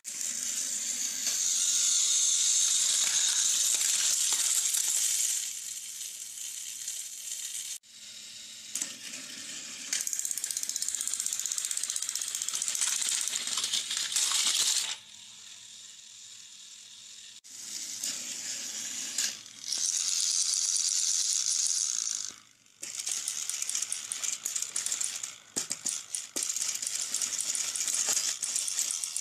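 Battery-powered plastic toy trains running on plastic track: a loud, hissy rattle of small motors, gears and wheels that drops away and starts up again several times.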